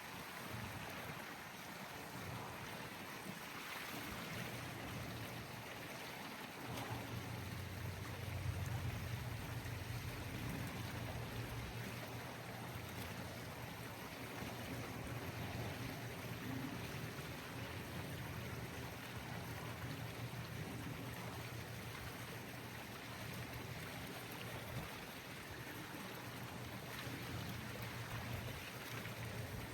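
Steady rushing of moving water, with a low hum that comes in about seven seconds in.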